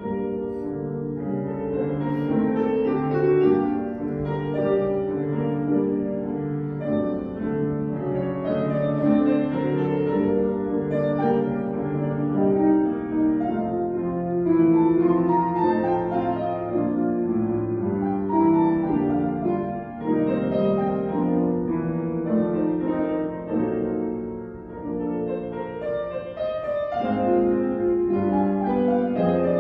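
Solo grand piano played: a piece starts right at the opening and carries on without a break, running notes over a low accompaniment at a steady moderate loudness.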